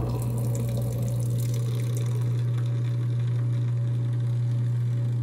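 Kitchen garbage disposal running with a steady low hum, with tap water pouring into it as it churns a foaming disposer-cleaner packet.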